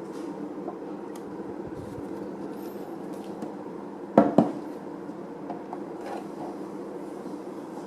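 Two quick plastic knocks close together about four seconds in, as the car air purifier's filter and cover are handled, over a steady low background hum.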